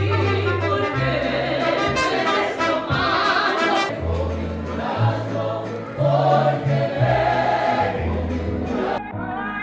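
Background music: an orchestral piece with choir voices over long held bass notes that change about once a second, switching abruptly to a different track just before the end.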